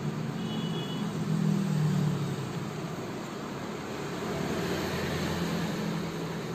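Steady background rumble and hiss, swelling slightly a second or two in, with a brief faint high tone about half a second in.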